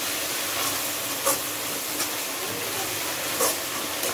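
Onions and ginger-garlic paste sizzling steadily in hot oil in a kadai, stirred with a spatula that scrapes against the pan a few times.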